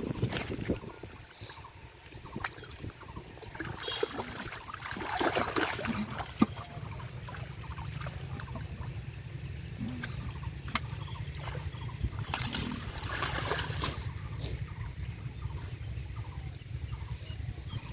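Hands splashing and squelching in shallow muddy water while a catfish is grabbed by hand, with louder bursts of splashing about five seconds in and again near thirteen seconds, over a steady low rumble.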